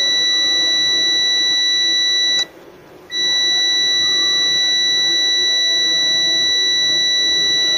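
UNI-T clamp meter's continuity beeper sounding a steady high-pitched tone while its probes sit across the compressor's start and common terminals. The low winding resistance, about 4.5 to 5.7 ohms, keeps it beeping. It cuts out for under a second about two and a half seconds in, then resumes.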